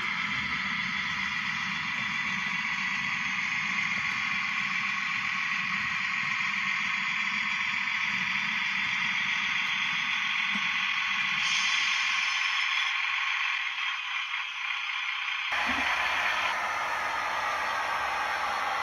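Model railway timber wagons rolling past on the track: a steady whirring rattle of small metal wheels on rails. Changes abruptly to a different steady running sound about three-quarters of the way through.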